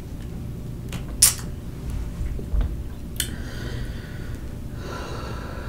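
Close-up eating sounds: a metal fork twirling spicy instant noodles in a glass bowl, with a few short sharp clicks of the fork against the glass and quiet breathing.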